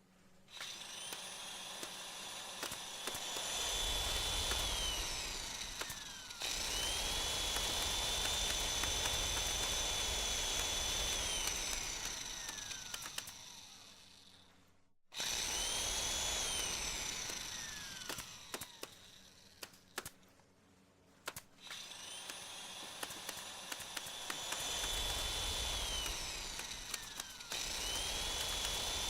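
Electric power tool motor, drill-like, running in long bursts. Each time its whine comes up to a steady high pitch, holds for several seconds, then winds down in a falling glide. This repeats about four times, with sudden cuts between some bursts.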